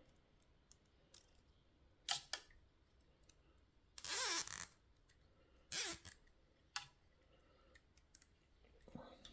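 Nylon cable ties being pulled tight: three short ratcheting zips, about two seconds apart, the middle one the loudest, with a few faint clicks between.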